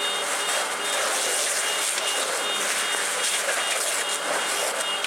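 Car fire being hosed down by firefighters: a steady rushing hiss of water spray and flames. High electronic beeps repeat on and off throughout.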